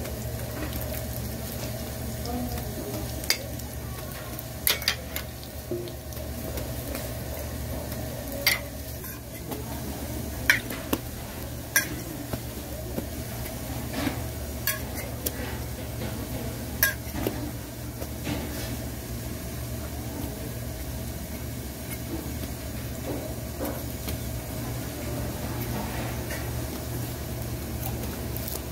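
Hotteok frying in oil on a flat steel griddle with a steady sizzle. About a dozen sharp metal clinks come from the steel pancake presses knocking on the griddle, scattered through the first two-thirds and then stopping.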